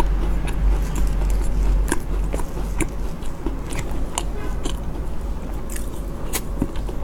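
Close-miked biting and chewing of a cookie piece, which the eater takes for an Oreo, with cream cake: scattered crisp crunches and mouth clicks, over a steady low hum.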